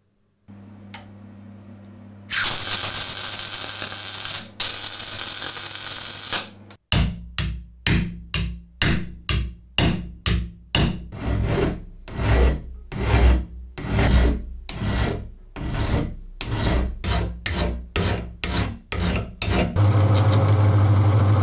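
Hand file worked back and forth on a small steel part clamped in a bench vise, a long run of strokes at about two to three a second. It is preceded by a few seconds of continuous harsh scraping noise, and near the end a drill press starts running a countersink bit into a hole in the steel bar.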